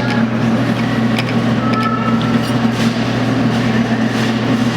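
Steady low electrical hum of a running claw machine, with a few faint clicks and brief high beeping tones as the claw is worked.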